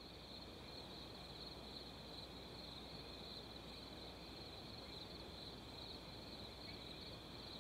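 Faint steady background noise with a thin, even high-pitched drone on top; no speech or music.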